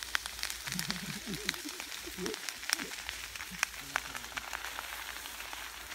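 A fire hose's water spray hissing onto smouldering brush and peat, with irregular crackles and pops from the burning ground.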